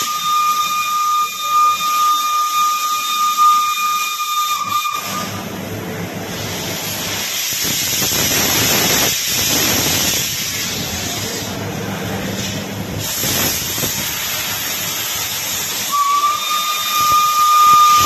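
Steam locomotive EIR 21's whistle blowing one steady high note for about five seconds, then a loud hiss of escaping steam, and the whistle sounds again near the end.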